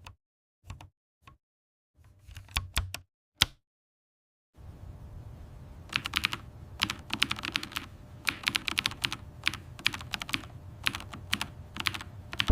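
Keys of a mechanical keyboard being pressed: a handful of separate keystrokes, then steady, rapid typing from about four and a half seconds in.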